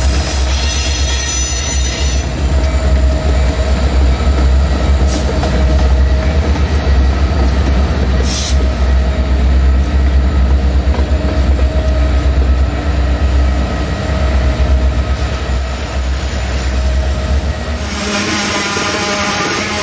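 A loaded Norfolk Southern coal train rolling slowly past behind its diesel locomotives: a steady heavy rumble of the hopper cars' wheels on the rail, with faint steady wheel squeal above it. Near the end the low rumble drops away and the sound changes.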